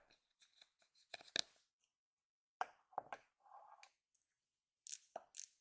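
Close-miked handling of a ChapStick lip balm tube: irregular sharp clicks, taps and scratchy scrapes, loudest in a quick cluster near the end.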